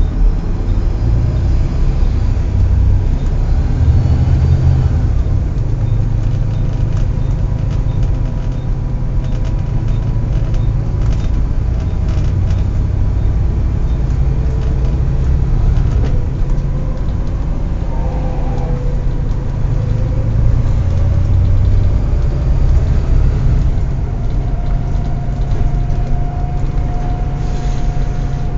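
Volvo B7TL double-decker bus's diesel engine running with a steady low rumble, overlaid by a thin, steady whine typical of its hydraulic cooling fan's hoover-like noise. A second, lower whine comes in near the end.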